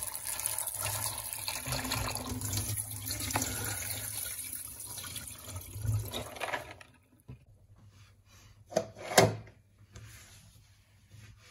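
Tap water running into a plastic colander of dried white beans while hands stir and rub them, the beans clattering softly; the water stops about seven seconds in. Two short knocks follow shortly after.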